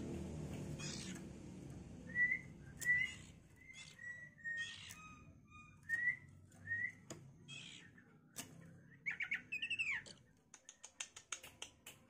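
Juvenile oriental magpie-robin calling: a string of short, clipped call notes, then a louder harsh, rasping call about nine seconds in. A quick run of ticks follows near the end.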